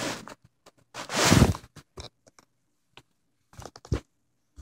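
Handling noise right against a phone's microphone: a loud rubbing scrape about a second in, then scattered clicks and knocks, the last one loud near the end.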